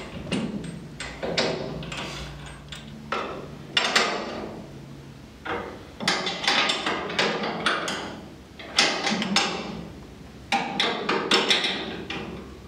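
Hand tools and metal parts working on a car's upper control arm mount: several bursts of metallic clicking and clanking as the bolts are loosened to take a camber shim out.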